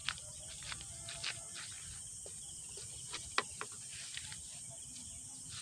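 Steady high-pitched insect chorus, typical of crickets. It is broken by a few sharp clicks and taps, the sharpest about three and a half seconds in.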